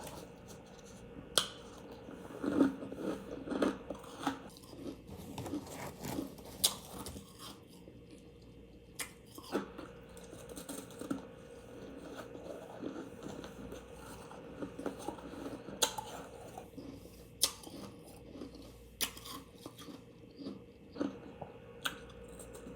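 Refrigerator frost ice being bitten and chewed: softer wet chewing with sharp crunches at irregular moments, a dozen or so in all.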